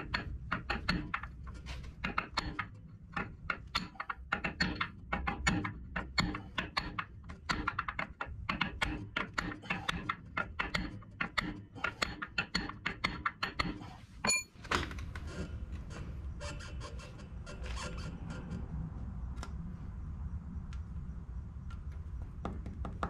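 Hammer tapping new steel freeze plugs into a Ford N-series tractor's cast-iron engine block, seating them: quick, irregular taps for about fourteen seconds. Then a single ringing strike, followed by a steady low hum.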